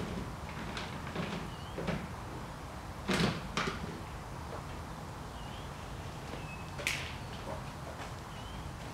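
A few sharp knocks and clatters, the loudest about three seconds in and another about seven seconds in, with faint short high chirps in between.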